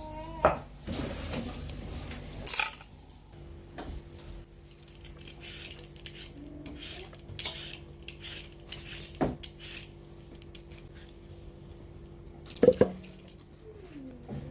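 Kitchen utensils and dishes clinking and knocking during food preparation, in scattered short knocks, a few of them sharp and loud. A steady low hum starts a few seconds in.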